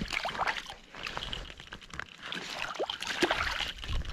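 Water splashing and sloshing in irregular bursts.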